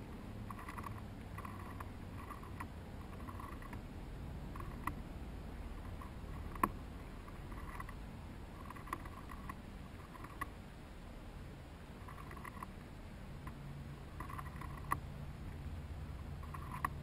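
Chipmunks gnawing and shucking corn: irregular short scratchy crunches, with a few sharp clicks, the loudest a little over six seconds in.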